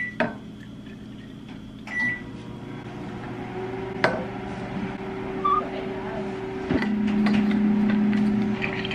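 Milk poured from a glass bottle into a steel insulated bottle of iced coffee, with a few clicks of glass against the rim over a steady hum. The bottle's cap is put on near the end.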